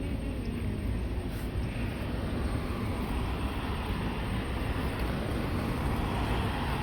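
Steady low vehicle rumble with a hiss above it, even throughout with no distinct events.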